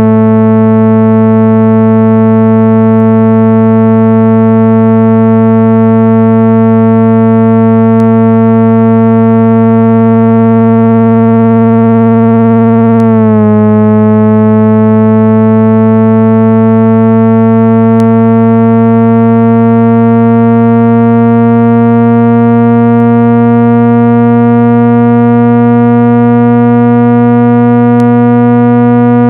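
Loud, steady synthesized drone with many overtones, a speaker-cleaning tone played to vibrate water and dust out of a phone speaker. About halfway through its pitch dips slightly, then slowly rises.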